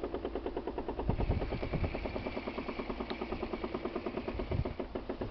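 Machinery working on a bridge repair, hammering in a steady rapid rattle of about a dozen blows a second, like a pneumatic breaker.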